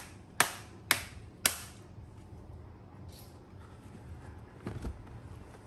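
Three sharp plastic clicks about half a second apart as the ASUS VivoBook X1500KA's lid and case are pressed along the edge, then a soft knock near the end as the laptop is set down on the bench.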